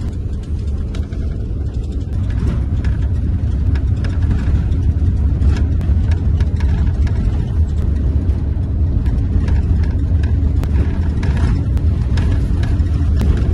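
Steady low rumble of a bus's engine and road noise heard from inside the passenger cabin, with faint clicks here and there.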